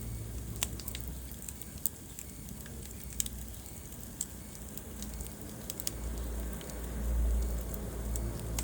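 Wood fire burning in a fireplace, with irregular sharp crackles and pops over a low steady rumble that swells louder near the end.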